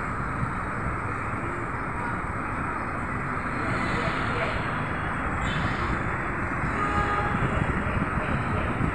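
Town street traffic: a steady low hum of buses, auto-rickshaws and other vehicles, with a couple of faint brief tones about seven seconds in.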